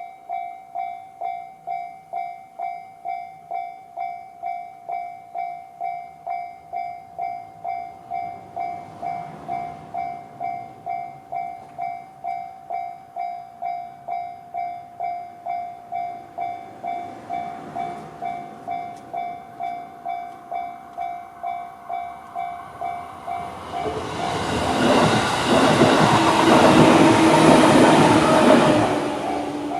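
Japanese railway level-crossing alarm, the JR standard electronic bell sound, ringing in a steady rapid rhythm. About 24 seconds in, a JR 211 series electric train passes through the crossing; its rumble and wheel clatter become the loudest sound, then ease off near the end while the bell keeps ringing.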